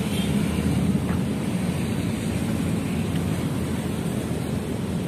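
Steady rumble of road traffic, cars and motorcycles, mixed with wind noise on the microphone.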